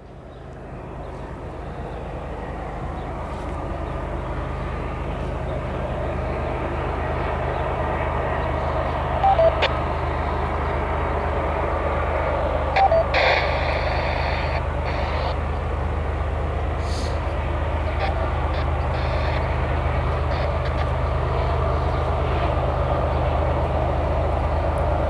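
Diesel locomotives of an approaching CSX freight train running, a steady low engine drone with a rumble that grows gradually louder as the train nears. A couple of brief sharper sounds come through, about a third of the way in and again around halfway.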